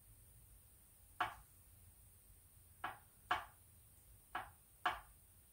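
Five light, sharp metallic clicks, the last four in two close pairs: the crown wheel of a Ford M86 differential being rocked back and forth against the pinion, its teeth knocking across the backlash gap as the backlash is measured.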